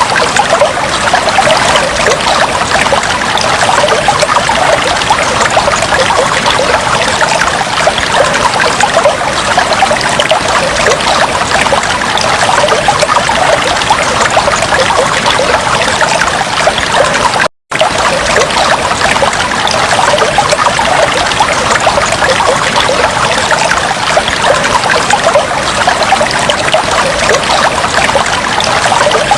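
Aquarium water trickling and bubbling steadily, a dense fizz of many small splashes, which drops out completely for a split second about seventeen seconds in.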